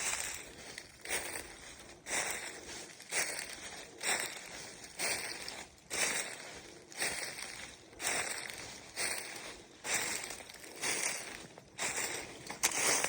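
Footsteps walking over rough, vegetated ground, a crunching rustle about once a second at a steady pace.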